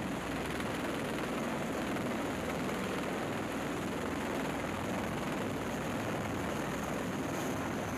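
MV-22B Osprey tiltrotor's turboshaft engines and proprotors running steadily in helicopter mode as it touches down on a ship's flight deck, a constant whooshing rotor-and-engine noise.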